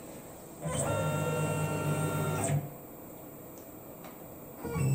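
CNC machine axis motors running with a steady pitched whine for about two seconds as the machine drives a touch probe into a deliberate crash, then stopping. A similar motor whine starts again just before the end.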